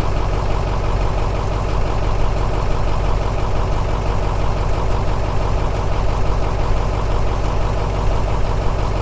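Engine idling steadily with a fast, even pulse and a deep hum.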